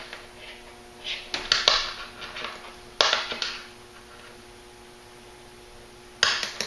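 Handling noises of shock cord being worked through the loops of a shotgun sling with forceps: short bursts of rustling and scraping, with a sharp click about three seconds in and another cluster of scrapes near the end, over a faint steady hum.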